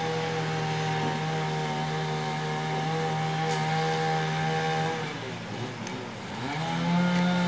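A motor running with a steady, pitched hum. It holds for about five seconds, dies away, then rises again near the end.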